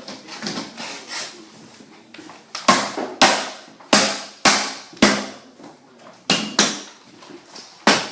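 About eight sharp taps on a sliding door panel's interlockers, starting a couple of seconds in, each with a short ring, spreading the interlockers so the rail can slide back on.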